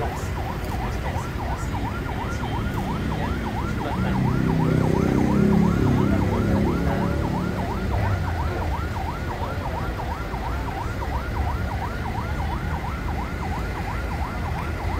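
Ambulance siren sounding a fast yelp, its pitch sweeping up and down about three times a second without a break. A louder low sound swells under it between about four and seven seconds in.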